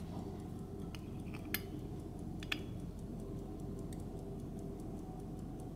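Faint small metallic clicks from handling and setting an antique gold pocket watch, two sharper clicks about one and a half and two and a half seconds in, over a light fast ticking.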